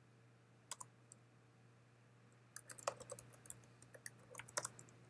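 Typing on a computer keyboard: a couple of keystrokes about a second in, then a quick run of keystrokes from about two and a half seconds in, over a faint steady hum.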